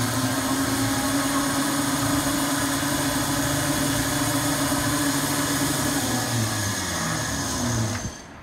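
Coil winding machine spindle running at speed, winding enamelled copper wire onto a cooler pump coil bobbin with a steady motor whine. Near the end the pitch sinks as it decelerates over the last turns, and it stops about eight seconds in as the set number of turns is reached.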